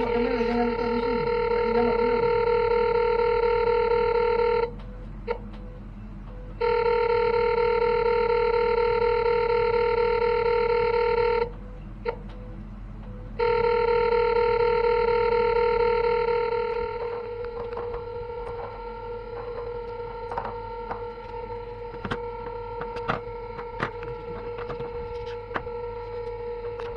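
Satellite finder meter sounding a steady electronic tone, cut off twice for about two seconds each. The tone then carries on fainter, with scattered light clicks.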